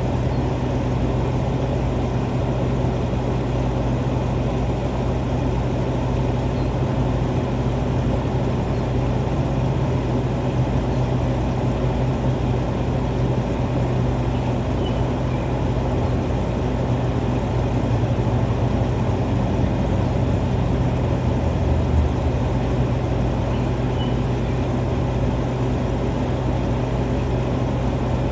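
A steady low motor-like hum with an even rumble underneath, level and unchanging.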